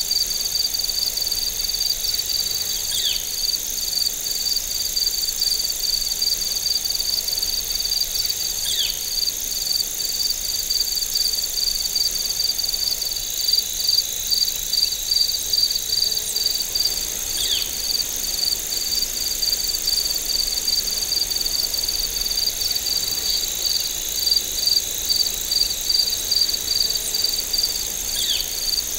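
Crickets and other insects trilling: steady high-pitched trilling with one insect pulsing in a rapid, even rhythm. A short falling call sounds four times, a few seconds apart.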